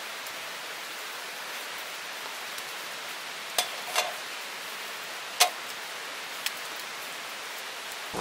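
Steady hiss of running water or rain, with three sharp pops and a fainter click between about three and a half and six and a half seconds in.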